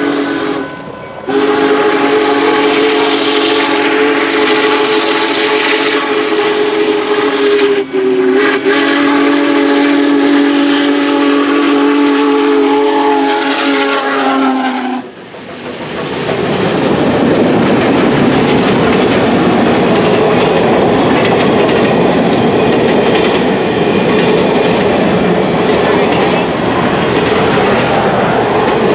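Union Pacific Big Boy 4014's steam whistle blowing a long chord as the train passes. It breaks off briefly twice and drops slightly in pitch about a third of the way in. It stops about halfway through, leaving the steady rush of the tender, diesel and passenger cars rolling by on the rails.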